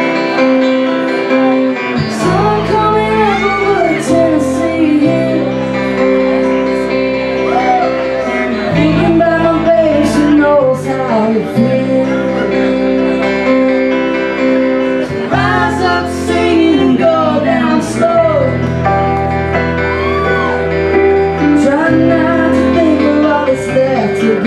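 Live band playing: a bass line comes in about two seconds in under sustained chords, with a lead melody that slides up and down between notes.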